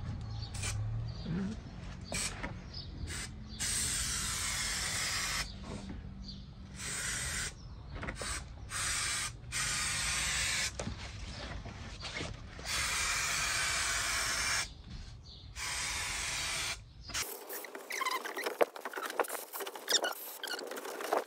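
Aerosol spray adhesive being sprayed in repeated short bursts of hiss, each starting and stopping sharply. Near the end the hiss gives way to scattered clicks.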